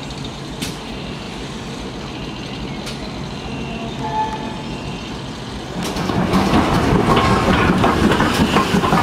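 Heritage railway coach running slowly over jointed track, its wheels clicking over the rail joints. About six seconds in it grows louder, with a dense rapid clatter as the wheels cross pointwork.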